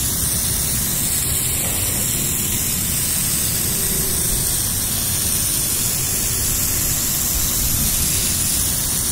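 Steady hiss of a pressure washer's thin water jet spraying onto concrete, running at an even level.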